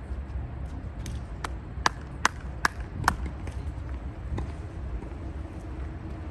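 Four sharp ball strikes in quick succession, about 0.4 s apart, as in a fast volley exchange, with fainter clicks before and after over a steady low rumble of wind.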